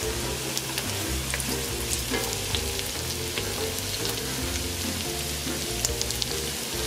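Chopped onion, carrot, celery and garlic sautéing in butter and oil: a steady light sizzle with small scattered crackles. Soft background music with steady low notes plays underneath.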